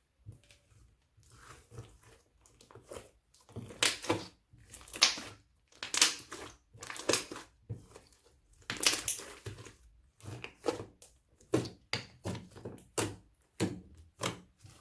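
Crunchy slime being squeezed and pressed by hand, crackling and popping in repeated bursts, which come quicker near the end.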